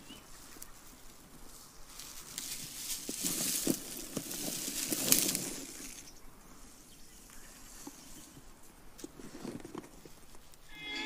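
Soft rustling and hissing of ashes being scattered by hand from a paper bag onto the forest floor, with the bag crinkling. The sound is loudest in the middle. Music begins right at the end.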